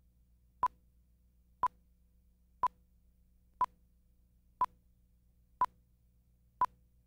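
Short electronic beeps of one steady pitch, one each second, seven in all, over a faint low hum.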